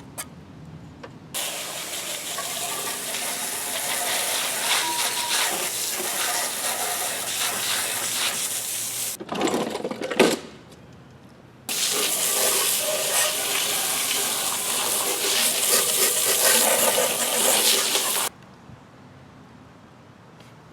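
Two long bursts of rushing, hissing spray from a nozzle, each lasting several seconds and starting and stopping sharply, with a brief louder spurt between them.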